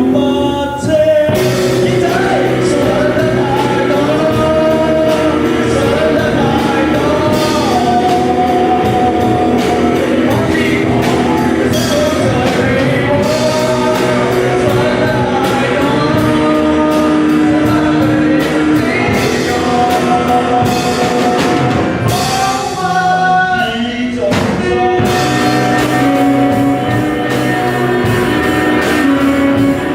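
A rock band playing a song with sung vocals, guitar and drum kit, with a brief drop in the music about three-quarters of the way through before it comes back in.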